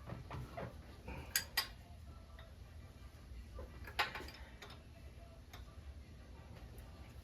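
Metal tools clicking and clinking against metal, probably during exhaust work: a few sharp clicks, two close together about a second and a half in and a louder one about four seconds in, over a low steady hum.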